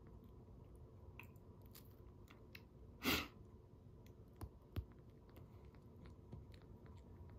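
Newborn kitten suckling at a nursing bottle's nipple: faint wet clicks and smacks. About three seconds in there is one short, loud noisy burst, and two soft thumps follow a second or so later.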